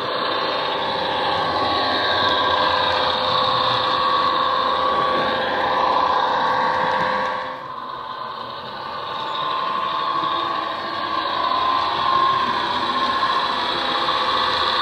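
Class 150 diesel unit engine sound played by a model train's factory-fitted South West Digital DCC sound decoder through an upgraded double speaker, running with the pitch rising and falling as the unit drives along. It has little deep bass and dips briefly about halfway through.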